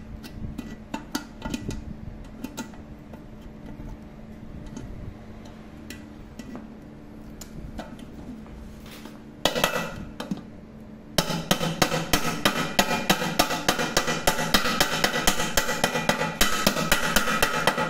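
Hammer striking a steel rivet set held on a rivet in a pressure cooker's handle bracket, peening the rivet head: scattered light taps at first, a louder burst about halfway, then from about eleven seconds a fast, steady run of taps.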